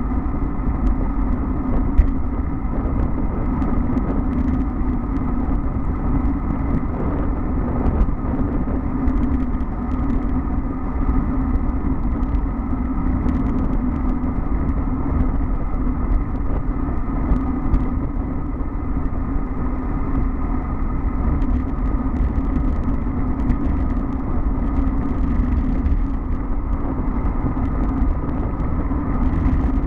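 Steady wind rush buffeting a bicycle-mounted camera's microphone, with road-bike tyres humming on asphalt at speed on a downhill run.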